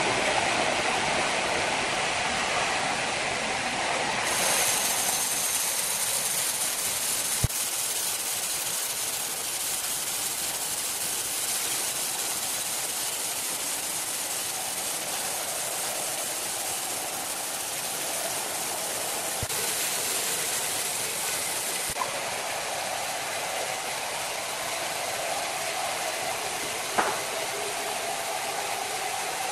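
Horizontal band sawmill running, its blade cutting lengthwise through a large red-heartwood log: a steady noisy rush of blade and motor, broken by a few short sharp knocks about 7 seconds in, near the 22-second mark and near the end.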